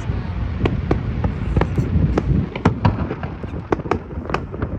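Fireworks bursting overhead: a rapid, irregular run of sharp cracks and bangs over a steady low rumble.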